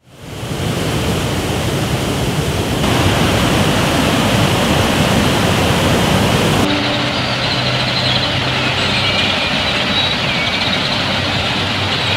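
Water pouring over a low concrete dam on San Felipe Creek, a steady loud rush. About seven seconds in it gives way to a quieter outdoor background of birds calling over a low steady hum.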